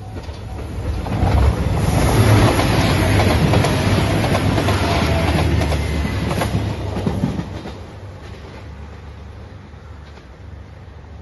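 A JR Shikoku 2700 series diesel express train passing close by, its wheels clacking over the rail joints, loudest from about two to six seconds in and then fading away. A level crossing bell rings briefly at the very start.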